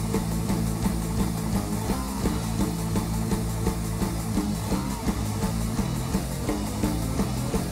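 Live rock band playing an instrumental passage: electric guitars and drums with a steady beat over held low notes, and no singing.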